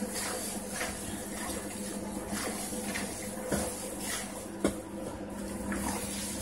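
Gloved hands kneading wet minced meat mixed with fat, onion and water in a plastic tub: a run of irregular squishing strokes, with two sharper slaps about three and a half and four and a half seconds in, over a steady low hum.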